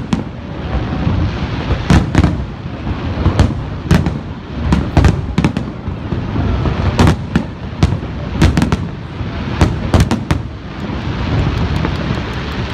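Fireworks going off: irregular sharp bangs over a low rumble, some in quick pairs, then a run of quick crackling pops near the end.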